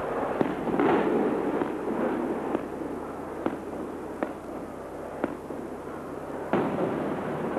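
Aerial firework shells going off: a run of sharp bangs a second or so apart, then a louder burst with a lingering echo a little before the end, as a spherical colour shell breaks.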